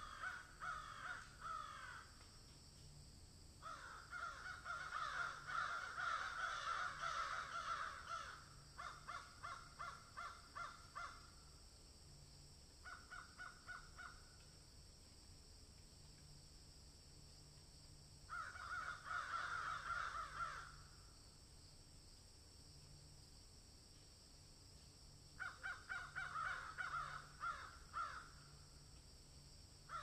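Harsh, rapidly repeated animal calls in bouts of one to four seconds, with quiet gaps of a few seconds between them.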